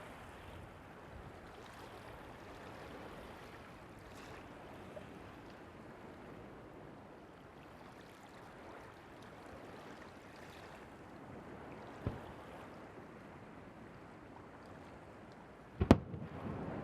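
Steady hiss of wind and surf. There is a faint knock about twelve seconds in, and a sharp firework bang near the end.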